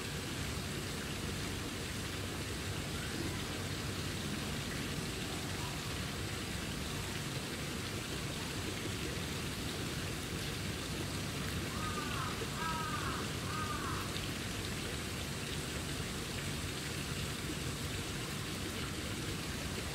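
Steady, even hiss of outdoor background noise. About twelve seconds in, three short calls that rise and fall in pitch come in quick succession.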